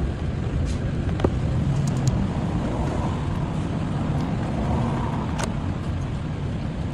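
Car engine running steadily at idle, with a couple of faint clicks.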